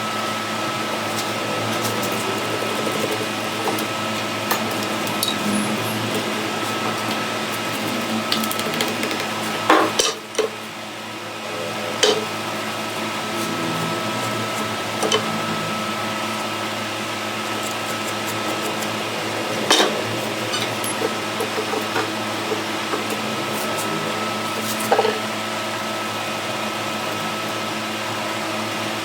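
A small machine running steadily with a constant hum. A few sharp knocks stand out, about ten, twelve, twenty and twenty-five seconds in.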